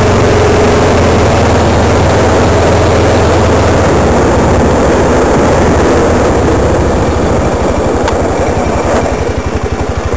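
ATV engine running under way, loud and steady. From about seven seconds in it slows, its separate firing pulses becoming audible as it drops toward idle and gets quieter near the end.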